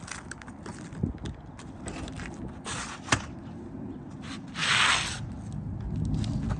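Asphalt roof shingles being worked loose by hand: scraping and rubbing, a few sharp knocks, and a longer rasp of the shingle tearing or sliding free just before 5 seconds in.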